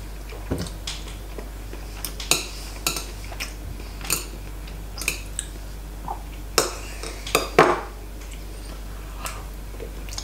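Metal chopsticks clicking and tapping against a ceramic plate, in short, sharp, irregular taps about once or twice a second, with a cluster of louder ones a little past halfway.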